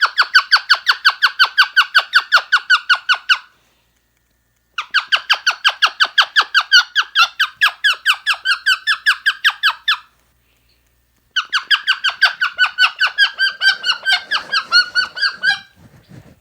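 Pet parrot making rapid, evenly repeated squeaky calls, about six or seven a second, in three long runs with short pauses between.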